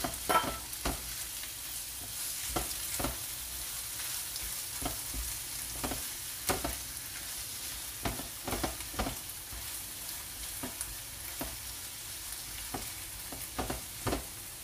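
Shrimp paste (alamang) frying with sautéed tomato, onion and garlic in a frying pan: a steady sizzle, broken by irregular scrapes and taps as a spatula stirs it against the pan.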